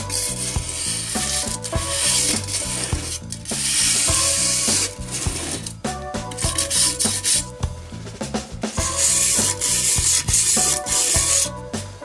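Hand wire brush scrubbing paint-stripper-softened paint off a steel bicycle frame tube in steady backwards-and-forwards strokes: rasping scrapes a second or two long with short breaks between them. Background music plays underneath.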